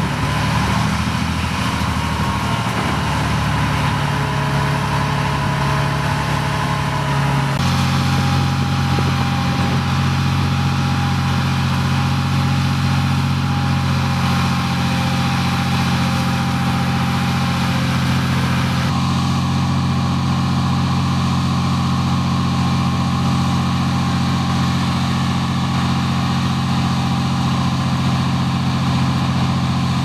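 Heavy tracked military vehicle's engine running steadily. Its tone shifts abruptly about seven seconds in and again about nineteen seconds in.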